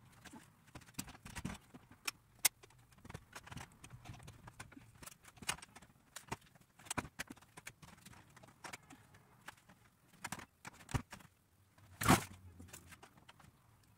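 Scattered knocks and clacks of a door being shifted and bumped against its wooden door frame while it is hung on its hinges, with one louder knock about twelve seconds in.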